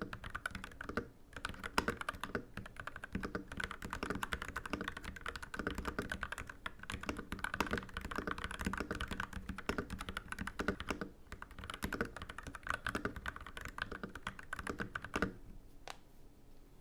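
Continuous fast typing on a custom mechanical keyboard with Gateron Yellow Pro linear switches, a dense run of keystrokes. The typing stops near the end, followed by one lone keystroke.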